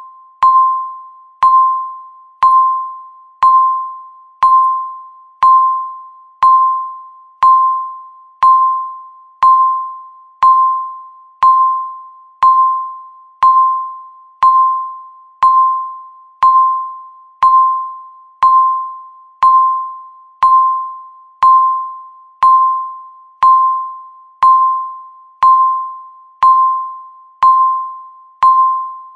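Countdown timer beep: a short single-pitched electronic tone sounding once a second, each beep starting sharply and fading quickly, marking each second left.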